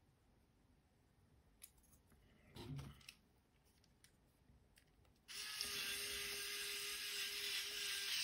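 Cordless electric precision screwdriver motor running steadily for about three seconds, starting about five seconds in, as it drives a small M2x6 screw into a carbon-fibre drone frame standoff. Before it, a few faint clicks and a brief rustle of parts being handled.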